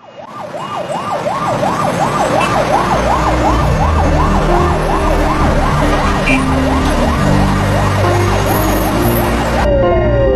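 Emergency-vehicle siren in rapid yelp mode, its pitch rising and falling about three times a second over traffic rumble. Near the end it cuts off suddenly and a repeating falling tone takes over.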